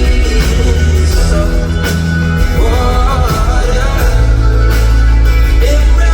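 Loud live concert music heard from the audience: a bass-heavy passage with held chords, and a wordless sung melody wavering through the middle.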